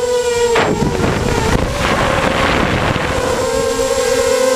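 Multirotor's electric motors and propellers whining steadily, heard from the onboard camera with wind rushing over the microphone. About half a second in the whine drops in pitch and gives way to wind noise, then returns steady a little before the end.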